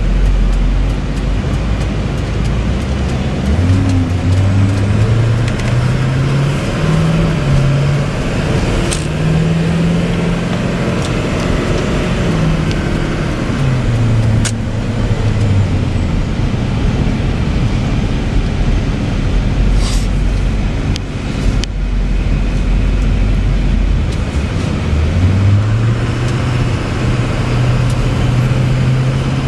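2004 Chevy C5500's 6.6-litre Duramax diesel pulling the truck along the road, its pitch rising and stepping as the transmission works through the gears, then easing off and climbing again near the end, over steady road noise. A few sharp clicks cut in now and then.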